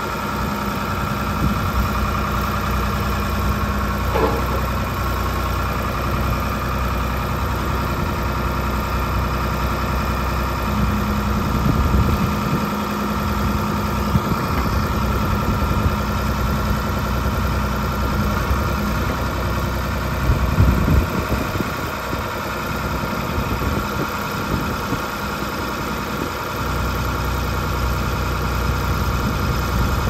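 Ford 555A backhoe loader's engine running steadily near idle while the backhoe boom and stabilizers are worked. The engine note shifts several times as the hydraulics take load, with the loudest swell about two-thirds of the way through.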